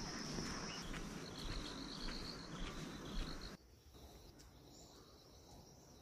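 Insects shrilling in the forest: a steady high whine, then a run of quick pulsing chirps for about two seconds. The sound cuts to near silence about three and a half seconds in.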